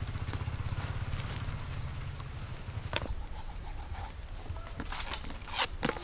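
Knife cutting dressed quail on a plastic cutting board, with sharp taps of the blade striking the board about halfway through and twice close together near the end. A low rumble runs under the first half and then fades.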